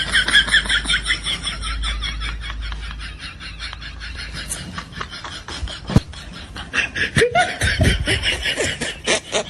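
Long, high-pitched laughter in quick pulses of breath. It fades down through the middle and picks up again near the end, with one sharp click about six seconds in.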